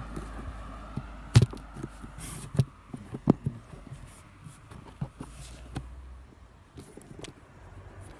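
Handling noise from a handheld phone's microphone: irregular knocks and rubbing as the phone is carried and jostled against clothing and body, over a low rumble that fades away about six seconds in.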